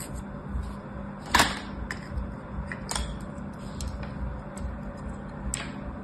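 Kinetic sand being cut and crumbled by hand with a plastic tool: short, crunchy scrapes and crumbles, the loudest about a second and a half in, others near three seconds and five and a half seconds, over a steady low hum.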